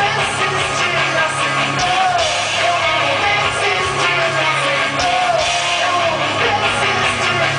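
Rock band playing live at full volume: electric guitars and drums with a voice singing a melody over them, heard from far back in the crowd.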